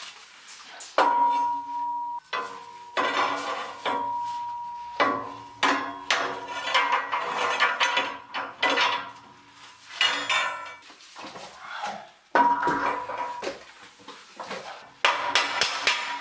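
Thick steel plates knocking and clanking against the steel channel uprights of a press frame as they are fitted, with several sharp knocks, some leaving the steel ringing with a clear tone for a second or so.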